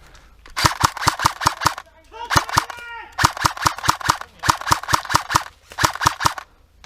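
Airsoft gun firing on full auto in four quick bursts of rapid snapping shots, about ten a second, with a short shout between the first two bursts.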